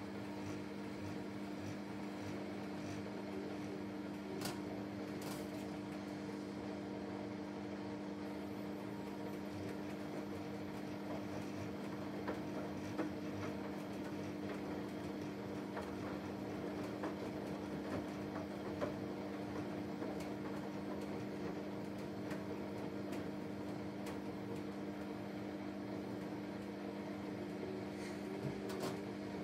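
Samsung WW90 front-loading washing machine turning its sudsy laundry in the drum during the pre-wash: a steady motor hum with two low tones, and a few faint clicks as the load and water move.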